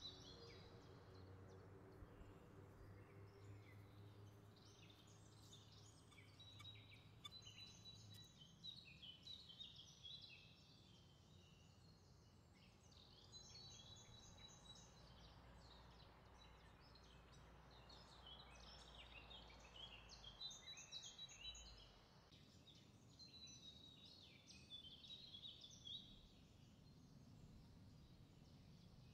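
Faint birdsong: small birds chirping and twittering over a low background hiss.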